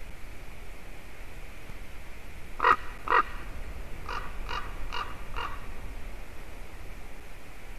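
Common raven calling: two loud calls half a second apart, then four fainter calls in quick succession, over a steady hiss.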